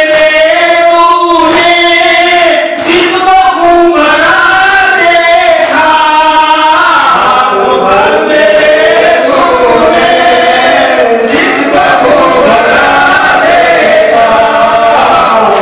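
Men's voices chanting a Muharram mourning lament (noha) together into microphones, in long sung lines that carry on without a break.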